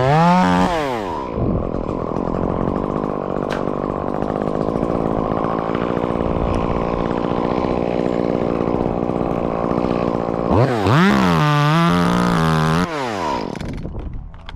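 Chainsaw revving up and down, then running steadily under load for about nine seconds as it cuts through wood, revving hard again near the end before dropping off.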